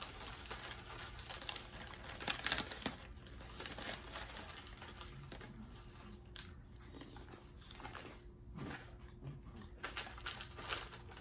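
Crinkling of a plastic snack packet being handled, with scattered crunching and chewing of dried banana pieces.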